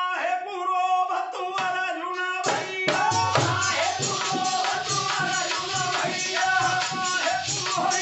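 A man singing a held line over harmonium. About two and a half seconds in, a dholak and jingling hand percussion come in, playing a fast, steady beat.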